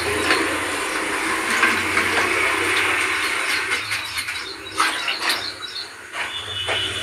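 Steady hiss, with a few sharp clinks and knocks near the middle and toward the end as steel kitchen vessels are handled at the stove.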